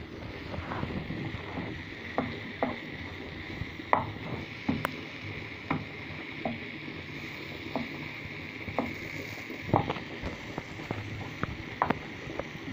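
Wooden spoon stirring chunks of sweet potato and vegetables in a frying pan, with irregular knocks and scrapes against the pan about once or twice a second, the loudest about 4 and 10 seconds in, over a steady hiss.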